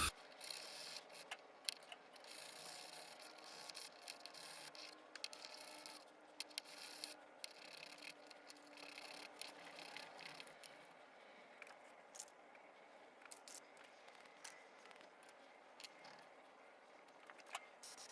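Very faint scattered clicks and light scraping of small parts being handled.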